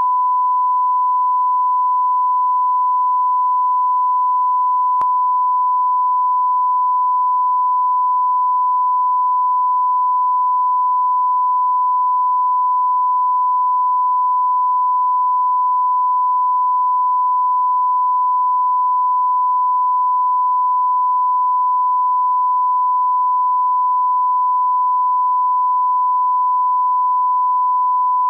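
Steady 1 kHz line-up test tone, one unbroken pure pitch at a constant level, as played with colour bars at the head of a broadcast tape. A faint click comes about five seconds in.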